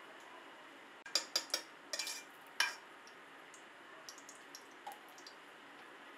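About five sharp metal clinks of a utensil against a steel pot as a lump of fat is added to hot oil, followed a little later by a few faint ticks, over a steady low hiss.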